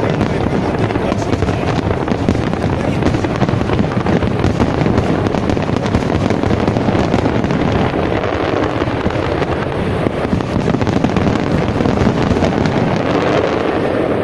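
Fireworks display: a loud, dense, continuous barrage of bursts and crackling with no break.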